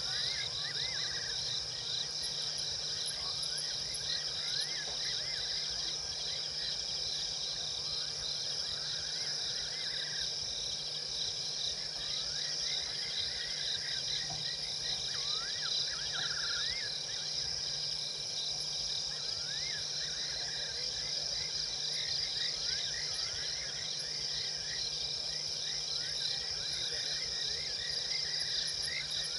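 Evening chorus of insects such as crickets: a steady dense high chirring, with short rising-and-falling calls from another animal every few seconds and a faint steady low hum underneath.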